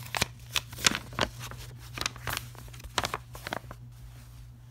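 Paper pamphlet being unfolded and handled: a run of sharp, irregular crackles and rustles for about three and a half seconds, over a low steady hum.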